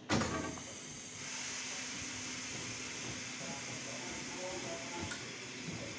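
Air hissing loudly and steadily from the train's brake line, starting suddenly with a short thump, as the train's brakes are worked during the locomotive change.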